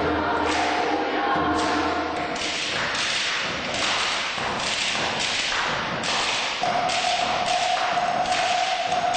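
Steady rhythmic percussive thuds, about one and a half strikes a second, keeping a slow beat. A choir's singing fades out in the first couple of seconds, and a single held note comes in about two-thirds of the way through.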